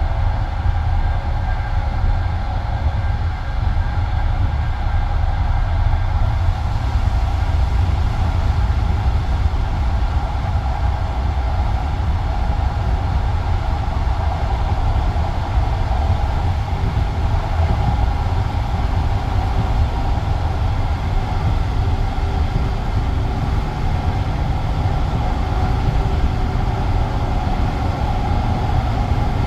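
Passenger train carriage on the move: a steady low rumble of wheels on rail with track noise, without a break.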